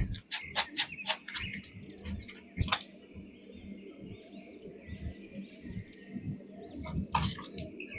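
Light clicks and taps of plastic toy packaging and figures being handled, with faint bird chirps in the background.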